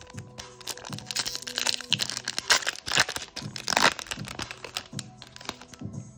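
Foil wrapper of a Japanese Pokémon card booster pack crinkling and tearing open by hand. The crinkling dies down after about four seconds as the cards come out, over background music.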